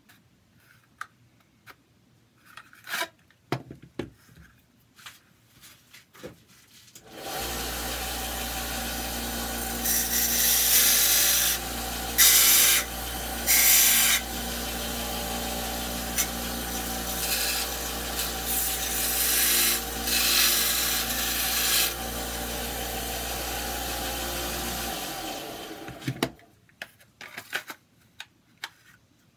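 An electric sanding or grinding tool runs steadily for about eighteen seconds. Five times it gives a louder rasp as the Kydex plastic of the holster is pressed against it to take material off. Light clicks of the holster being handled come before and after.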